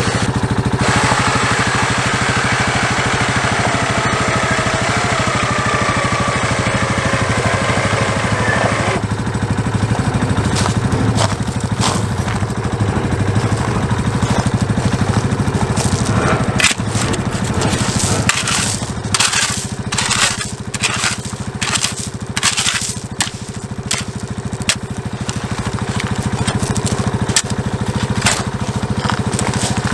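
Yamaha ATV engine running steadily. From about a third of the way in, a steel spade is driven again and again into gravel and clay, giving a run of sharp crunching strikes.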